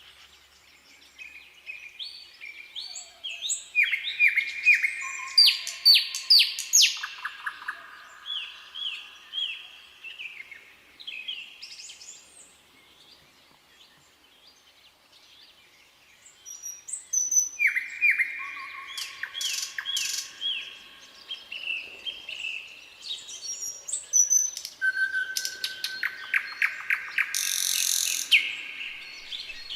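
Nightingale singing: phrases of rapid repeated notes, trills and clear whistles, with a pause of a few seconds midway before the song resumes.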